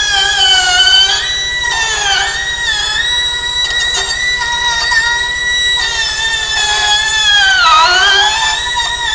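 Small right-angle die grinder with an abrasive disc whining at high speed while deburring the edge of a steel plate. Its pitch sags briefly about two seconds in and drops more deeply near the end, as the disc is pressed into the edge.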